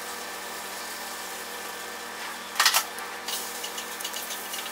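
A steady mechanical hum, as of a small motor or fan running. About two and a half seconds in there is a short scrape, a metal spoon scooping yogurt out of a plastic cup, followed by a few small clicks.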